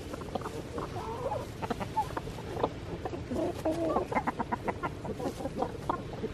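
A flock of chickens clucking as they forage in grass: scattered short clucks and a few drawn-out calls, with a quick run of rapid clucks about four seconds in.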